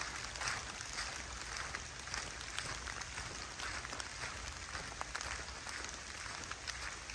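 Rain pattering steadily on leaves and the forest floor, many small drops ticking. Footsteps on the wet leaf litter go along under it.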